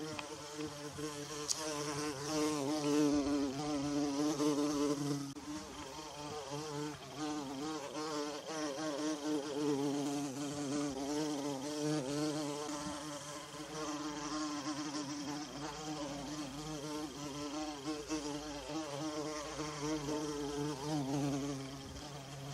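A bumblebee buzzing without a break, its low hum wavering in pitch and swelling louder and softer as it moves about, loudest a few seconds in.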